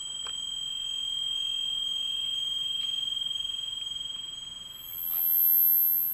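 Electronic soundtrack of pure sine tones: a steady high tone swells slowly and fades out about five seconds in. A much higher, piercing tone then swells up and dies away near the end, the loudest part. A few faint clicks are scattered through it.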